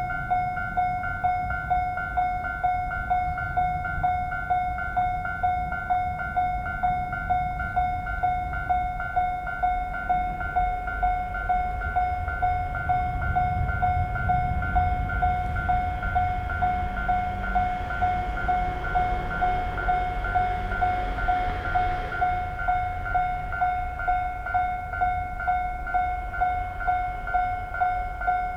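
Japanese railway level-crossing warning bell ringing steadily, a single repeated tone at about one and a half strokes a second, while a train rumbles past, loudest in the middle.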